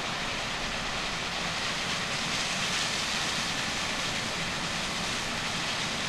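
Harvest machinery working, a steady rushing noise with no distinct engine note.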